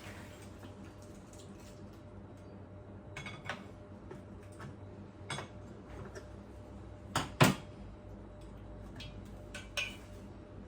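A few light metallic clinks and knocks of engine parts and tools being handled, with a louder pair of clinks about two-thirds of the way through, over a faint steady background hum.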